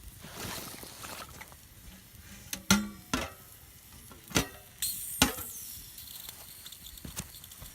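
Wood campfire crackling, with a soft hiss and a few sharp pops, the loudest near the middle.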